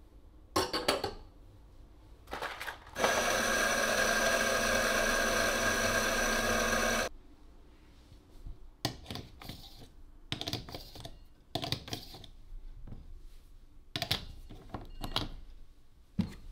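Electric burr coffee grinder running for about four seconds as it grinds a dose of espresso into the portafilter. Before it, a couple of metal clicks; after it, a series of taps and knocks of the metal portafilter and barista tools being set down and handled.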